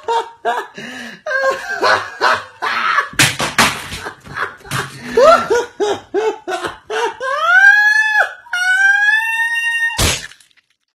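A man laughing hard in quick repeated bursts, breaking into two long high-pitched squeals near the end, then a sudden sharp noise.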